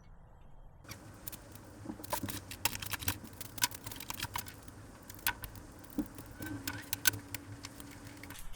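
Small parts of a table saw being handled during assembly: irregular clicks, clinks and knocks, starting about a second in. A faint steady hum joins for a couple of seconds near the end.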